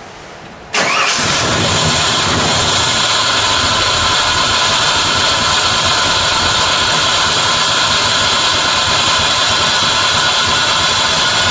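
The custom V8 of a 1956 Chevrolet Bel Air restomod starts suddenly about a second in, with no cranking heard, and then idles steadily and loudly.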